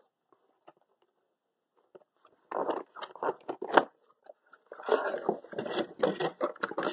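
Packaging being handled while a diamond grinding wheel is unpacked: quiet at first, then irregular rustling and scraping that starts about two and a half seconds in and grows busier in the last two seconds.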